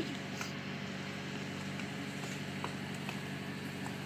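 Steady low hum of a cruise boat's onboard machinery running, with a few faint ticks over it.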